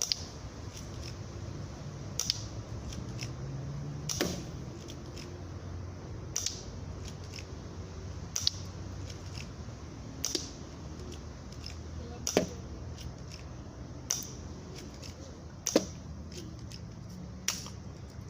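An airsoft gun firing single shots, a sharp click about every two seconds, with fainter clicks between the shots.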